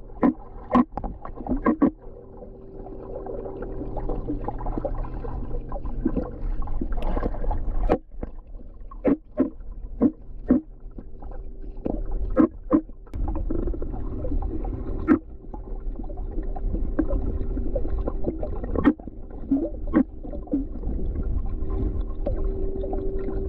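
Swimming-pool sound heard underwater: a steady low rumble with a faint steady hum, broken by a dozen or so sharp, irregular clicks and pops as a swimmer moves through the water.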